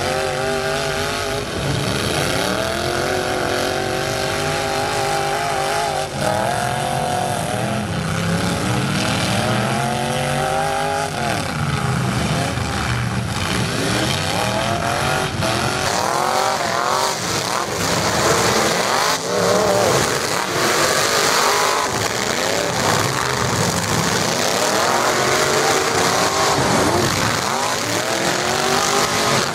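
Several demolition-derby pickup trucks' engines revving up and down over one another as they drive and ram, with a few sudden knocks of hits among them.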